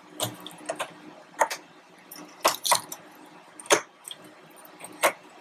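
Irregular sharp metallic clicks and knocks, about eight in all, as a small screw and the X-axis motor are handled against the metal carriage of a laser engraver's gantry while a screw is being started.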